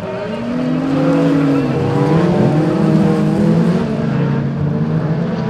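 Several race car engines revving hard together as the cars go round a dirt oval, their overlapping engine notes rising and falling.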